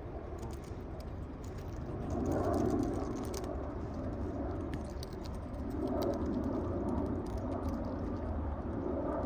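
Birds pecking at chips: scattered light, irregular clicks and rustling over a steady low rumble.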